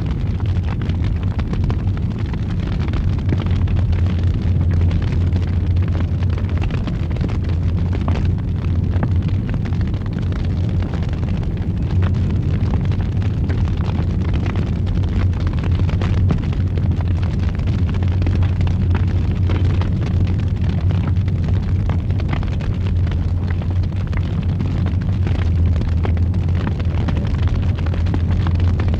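Wood fire burning in a fireplace: a steady low roaring rumble with many small crackles and pops scattered through it.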